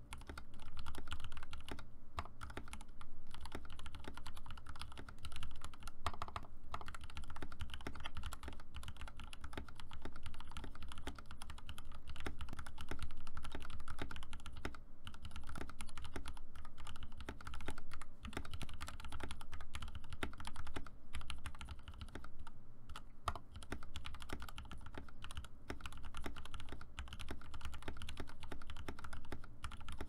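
Fast, continuous typing on a 60% custom mechanical keyboard with lubed Gateron Yellow linear switches and PBT keycaps, on an aluminium plate in a clear plastic case: a rapid, uneven stream of key clacks.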